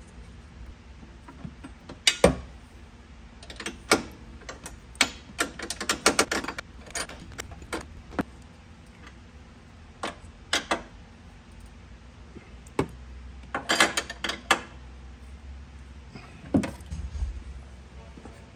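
Irregular metal clicks and clinks, some in quick little runs, as a steel suspension bracket is snapped into place and its nuts and bolts are fitted by hand.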